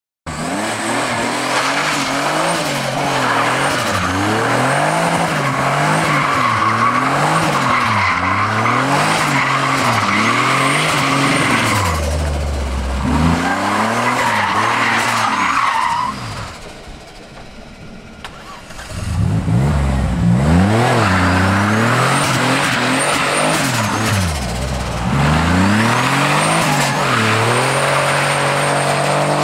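Turbocharged 2.9 V6 Ford Sierra drifting, the engine revving up and down every second or so over continuous tyre squeal. About 17 seconds in, the squeal stops and the engine falls to a low note for a couple of seconds before the revving and squeal start again.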